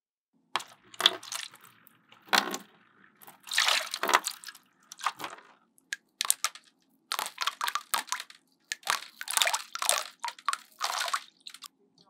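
Water splashing in irregular short bursts over a faint low steady hum.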